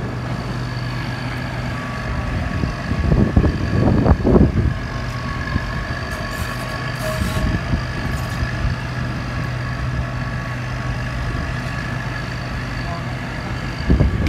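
Motor grader's diesel engine running steadily with a constant low hum, swelling louder for a moment about three to four seconds in.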